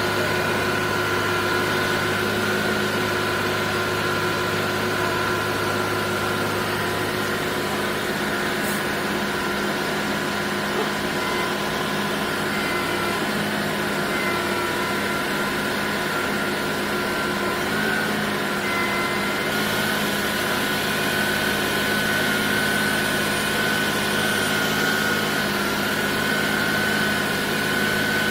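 Junjin concrete pump truck running steadily: an even machine drone with a steady high whine over it.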